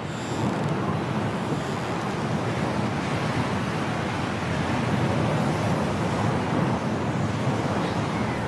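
Storm wind blowing steadily in a snowstorm, a rushing noise without tone that grows a little louder about half a second in.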